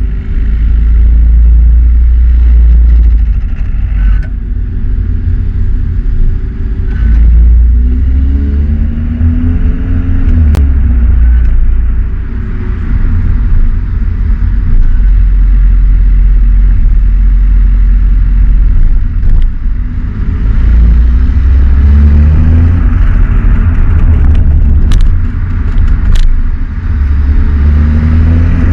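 Volkswagen Golf 7 R's stock turbocharged four-cylinder engine and exhaust, running loud under load with revs rising and falling through several gearshifts. A few sharp cracks are scattered through it.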